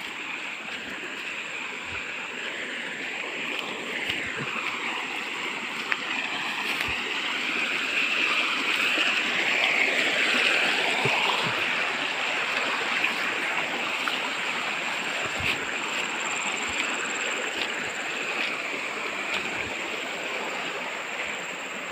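Shallow stream running over rocks, a steady babbling that swells a little louder midway and then eases back.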